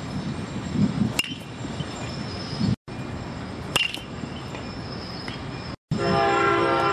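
Two sharp cracks of a bat hitting a pitched baseball, about two and a half seconds apart, each with a brief ring. Near the end a loud, steady horn-like tone of several pitches begins.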